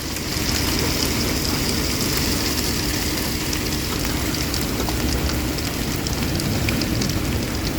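Heavy rain pelting a stopped vehicle, heard from inside the cab: a steady hiss and rumble with many sharp ticks of drops striking the body and glass.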